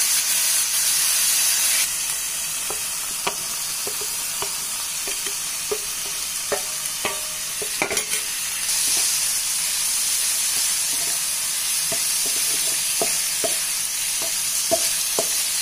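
Sauce sizzling in a non-stick frying pan while a spatula stirs and taps against the pan in scattered clicks. About eight seconds in, fried chicken pieces are tipped in from a steel plate with a sharp knock, and the sizzle then grows louder.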